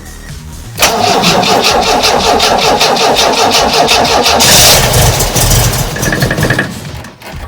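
MGB's 1.8-litre B-series four-cylinder engine being cranked on the starter motor with full choke, turning over in a steady pulsing rhythm for about six seconds without catching, then stopping. It is a cold start after two months standing.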